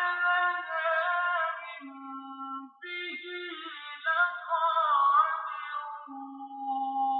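Melodic Quran recitation in Arabic: a reciter chants a verse in long, wavering held notes. There is a short break a little under three seconds in and a long held note near the end. It is heard from a television's speaker.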